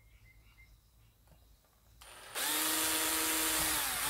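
Cordless drill with a fine bit boring a pilot hole into a plastic keyboard's bottom case. About two seconds in it spins up and runs at a steady pitch for just under two seconds, stopping near the end.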